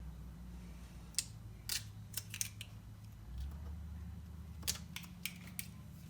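A series of sharp, light clicks and snaps, about eight of them at irregular intervals, from hands handling the shelf grid parts and two-sided tape. A low steady hum runs underneath.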